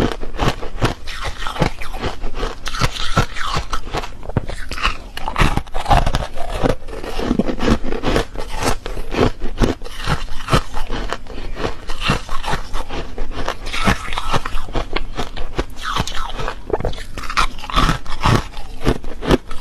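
Refrozen foam ice being bitten and chewed close to the microphone: a dense run of brittle crunches and crackles in quick, irregular snaps.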